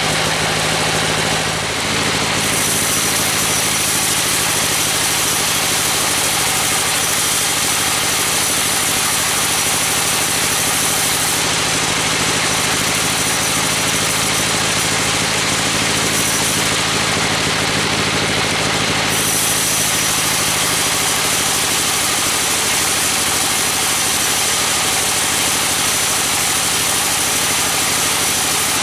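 An engine-driven wood saw runs steadily while cutting teak. Its high hiss thins out for a few seconds twice.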